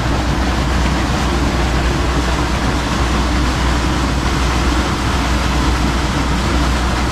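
Steady rushing of a water jet spraying up and splashing down at a pump structure, over a constant low machinery hum.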